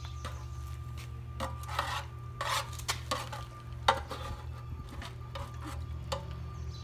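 A utensil stirring and scraping scrambled eggs in a metal pan, with irregular scrapes and clinks against the pan; the sharpest knock comes about four seconds in.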